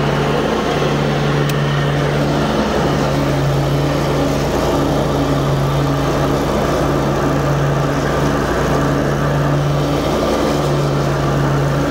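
The Kawasaki FX-series 20-horsepower V-twin engine of a 48-inch eXmark Lazer Z zero-turn mower running steadily under way, with the cutting blades engaged. Its hum dips briefly a few times.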